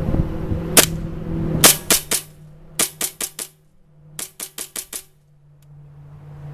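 KWA MP7 gas-blowback airsoft SMG, converted to run on high-pressure air, firing: a single sharp crack, then quick bursts of three, five and six shots.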